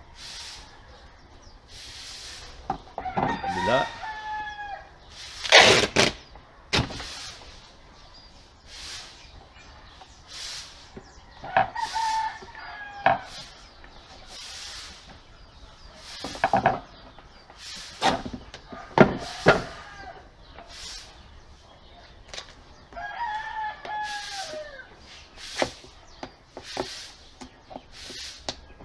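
A rooster crowing three times, each crow about two seconds long and falling away at the end. A series of sharp knocks and clicks from work at the bench comes in between the crows, the loudest of them louder than the crowing.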